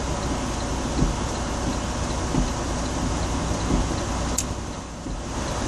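A stopped vehicle's engine idling, heard from inside the cab as a steady low rumble. Faint regular ticks come about every 0.7 s, and there is one brief click a little past the middle.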